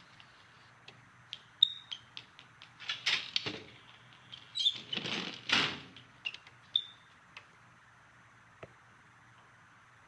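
Animated-film Foley effects: a string of small clicks and taps, a few short high squeaks, and two rustling swishes about three and five seconds in, with a last single click near the end.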